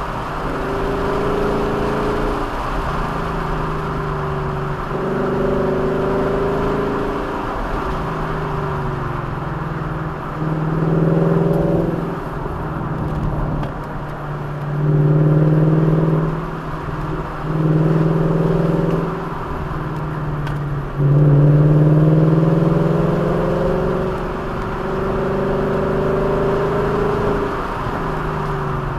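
A vehicle's engine repeatedly accelerating and easing off. Its pitch climbs, breaks, and starts again lower, as with gear changes. It is loudest in several surges through the middle, over a steady rushing road noise.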